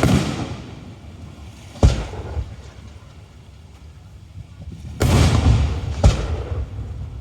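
Aerial fireworks shells exploding: a deep boom fading out at the start, a sharp bang about two seconds in, then another deep boom about five seconds in followed a second later by a sharp bang, each trailing off over about a second.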